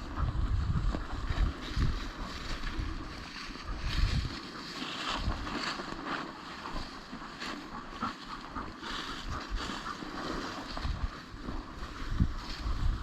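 Wind buffeting the microphone in uneven gusts, with the scratchy swish of walking through dry field cover.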